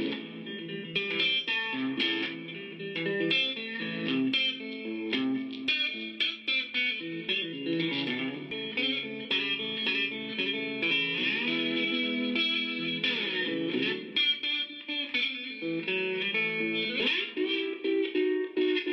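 Music: a guitar playing a melody of quick plucked notes, with a few notes bent in pitch.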